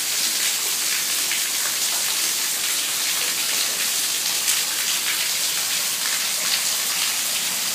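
Heavy rain falling steadily, with a stream of runoff pouring off the roof edge and splashing onto the paving below.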